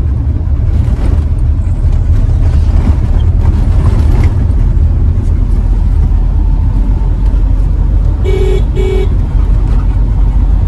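Steady road and engine rumble inside a moving Toyota Innova's cabin. About eight seconds in, a vehicle horn toots twice in quick short blasts.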